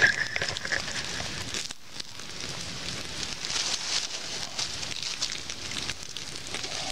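Small campfire of sticks and birch bark crackling, a steady hiss dotted with many small pops, the flames still burning down toward coals.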